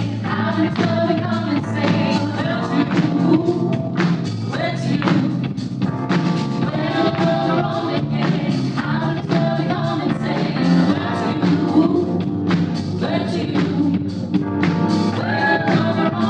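A choir singing, many voices together without a break.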